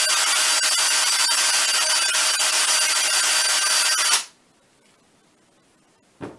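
Power drill running with its bit boring out a hole in a rubber tennis ball, a steady motor whine with faint regular ticks, then the drill stops suddenly about four seconds in. A short knock follows near the end.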